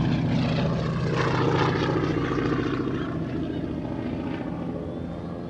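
North American T-6 Texan's radial engine and propeller droning as the plane climbs away, the sound fading steadily.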